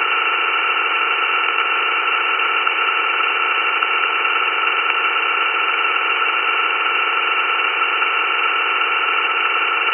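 Steady static hiss, narrow in range as if from a radio or small speaker: playback of an EVP (electronic voice phenomenon) session recording, with no clear words in it.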